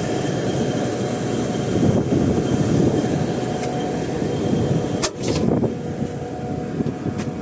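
BlueStar ductable air conditioner's outdoor unit running steadily on a fresh R22 charge, its compressor and condenser fan giving a constant hum with faint steady tones. A couple of sharp clicks about five seconds in and another near the end.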